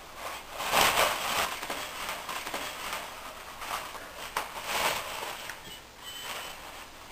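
Paper tissue rustling and crinkling as a cat burrows into and paws at sheets unrolled from a roll, in irregular bursts, loudest about a second in.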